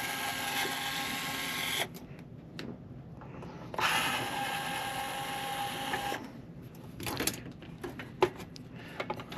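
Cordless electric screwdriver running twice for about two seconds each, a steady motor whine, backing out two screws, followed by a few light clicks and clatters of metal parts being handled.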